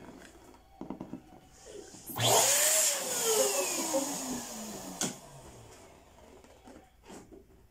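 Electric balloon inflator blowing air into a latex balloon for about three seconds: a loud rushing hiss with a whistling tone that slides down in pitch, cut off with a click. Before it come a few light handling sounds.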